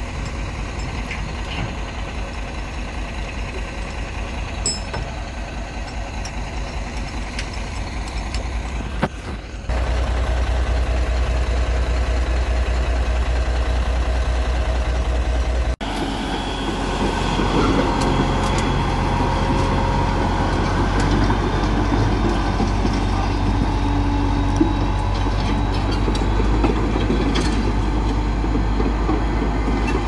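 Heavy diesel engine running at idle with a low rhythmic pulse. About ten seconds in, it steps up suddenly to a louder, steadier run and cuts out for an instant near sixteen seconds.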